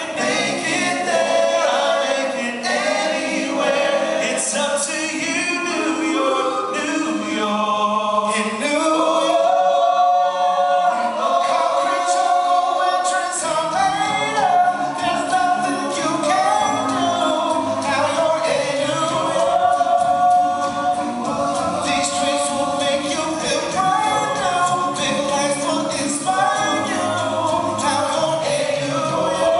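Male a cappella group singing in close harmony, voices only with no instruments, sung into handheld microphones and amplified. The low bass part drops out for a few seconds near the middle of the passage and then comes back in.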